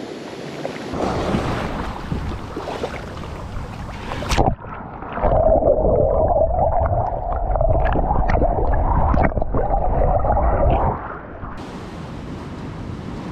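Surf and wind noise on the microphone. About four seconds in, the sound changes suddenly to a muffled, wavering hum over a low rumble, the loudest part, which stops about eleven seconds in.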